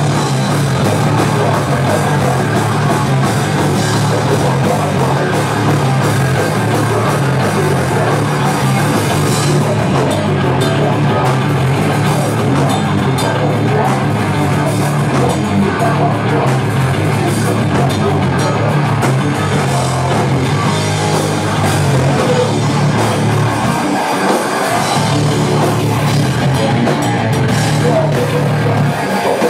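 Hardcore punk band playing live and loud: distorted electric guitars, bass and a drum kit pounding together in a small room.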